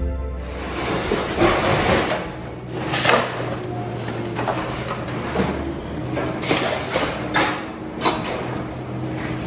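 Irregular knocks and scrapes, roughly one a second, over a steady background hum.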